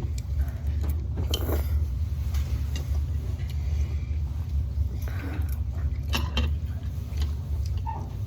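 Noodle-eating sounds: short clicks and clinks of utensils on a dish and slurps, a few at a time, over a steady low hum.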